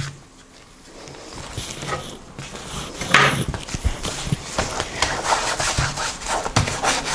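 A sponge loaded with acrylic paint scrubbed back and forth over a canvas: a dense, scratchy rubbing full of little ticks, which sets in about two thirds of the way through after a few scattered knocks from handling the sponge on the palette.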